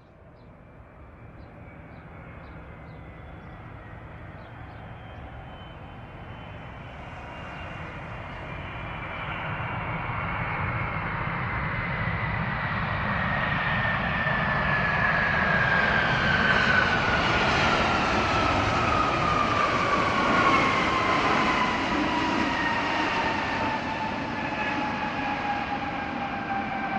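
Boeing 777's twin turbofan engines as the airliner rolls past on the runway: a rushing jet noise that builds up, with a whine that slides steadily down in pitch as it goes by. It is loudest about two-thirds of the way through.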